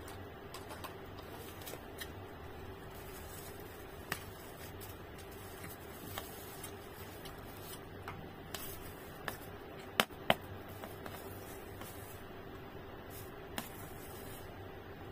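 A metal spoon clicking and scraping against a plastic bowl and the plastic-lined food wrap, in scattered sharp taps over a steady low room hum. The loudest are two quick clicks about ten seconds in.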